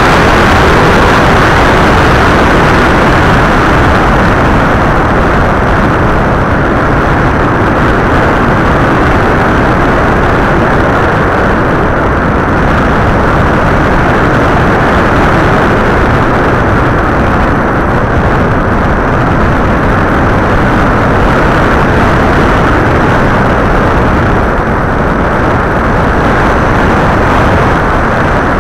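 Loud, steady rush of wind and motor noise picked up by the onboard camera of an FPV model aircraft in flight.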